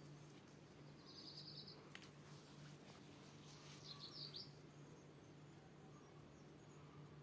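Faint birdsong: a short, rapid trill about a second in, then a quick burst of high chirps near the middle, over a steady low hum.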